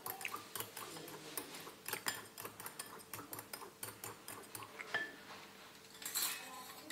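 A spoon ticking and scraping against a glass mixing bowl as cake batter is stirred by hand: a quick, uneven run of light clinks that thins out later, with a brief louder rustling scrape about six seconds in.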